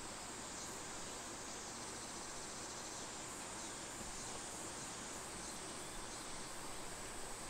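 Steady faint background hiss with a thin high whine, no speech; a few soft ticks near the end.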